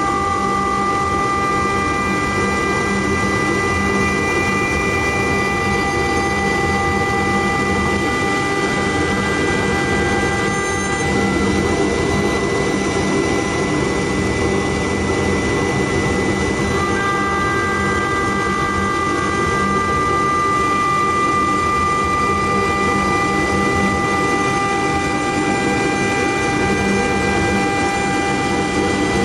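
CNC wood lathe running: a steady machine noise with a constant high whine. A set of higher tones on top drops out about 11 seconds in and returns about 17 seconds in.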